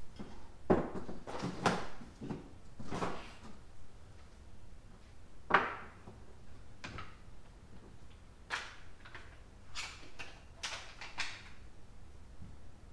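Irregular knocks and clunks, about a dozen spread over the time, the loudest a little before halfway.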